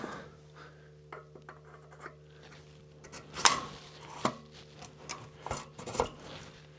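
Hand work on a trike's front wheel assembly: scattered clicks, knocks and scrapes of tools and small metal parts being handled, the loudest knock about halfway through, over a faint steady hum.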